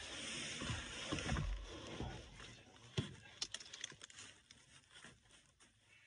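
Backhoe front drive shaft being worked off its splines by hand: metal scraping and clunking for the first two seconds, a sharp knock about three seconds in, then a few light clicks.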